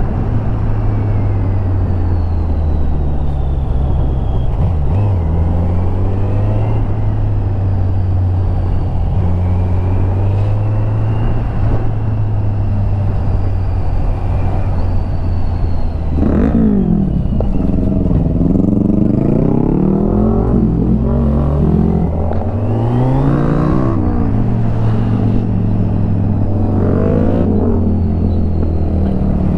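Kawasaki Z900's inline-four engine through its stock exhaust, heard on board while riding. It holds a steady pitch, then from about halfway the revs rise and fall repeatedly through gear changes for several seconds before settling back to a steady pitch.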